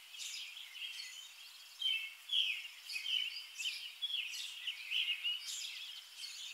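Wild songbirds chirping and singing in short repeated phrases over a faint steady background hiss.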